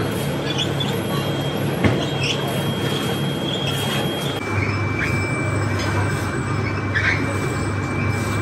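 Electric-motor-driven trough mixer running as it churns dark sand mix. A steady mechanical hum and rumble, with a thin whine that drops in pitch about four and a half seconds in, and scattered small clicks.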